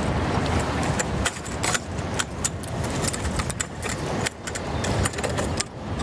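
Irregular metallic clicks and clinks of a sailboat's lifeline gate fittings as the gate is closed and its pins are pushed in, over a steady low rumble.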